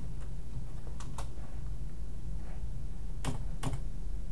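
A few separate keystrokes on a computer keyboard: two clicks about a second in and two more past three seconds, over a steady low hum.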